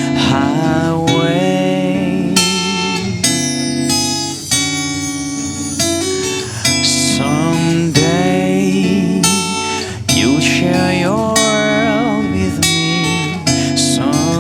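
Guitar-led music: strummed and plucked guitar chords under a lead line of bending, sliding notes, the song's instrumental intro before the vocals come in.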